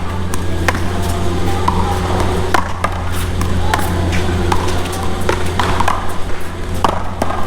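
One-wall paddleball rally: paddles striking a hollow rubber ball and the ball smacking off the wall and ground, giving sharp cracks at irregular intervals, mostly half a second to a second apart, over a steady low rumble.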